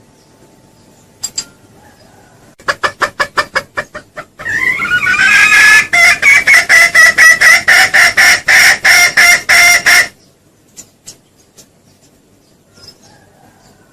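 Junglefowl calling loudly: a quick run of short clucks, then about six seconds of rapid, evenly spaced cackling clucks that stop suddenly.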